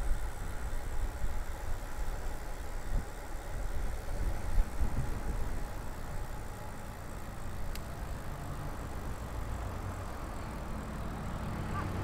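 Road traffic: a nearby motor vehicle's engine running. An uneven low rumble over the first half settles into a steady low engine hum in the second half.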